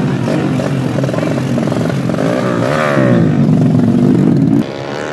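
Race-prepared motorcycle engine running close by, revved so its pitch rises and falls around the middle; the loud running drops away sharply near the end.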